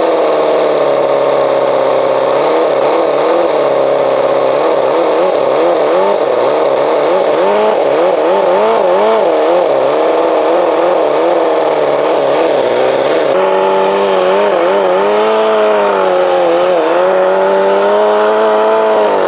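Toyan FS-L400 four-cylinder four-stroke nitro engine running on a moped, its pitch wavering up and down unevenly before it dies suddenly at the very end; the owner suspects it is running too rich.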